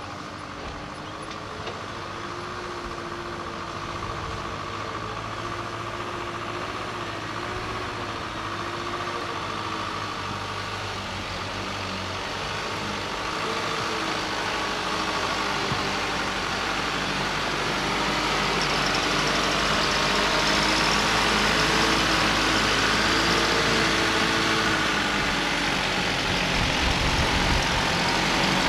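Isuzu ELF dump truck's diesel engine running as the laden truck drives toward the listener. Its pitch wavers up and down, and it grows steadily louder as the truck draws near.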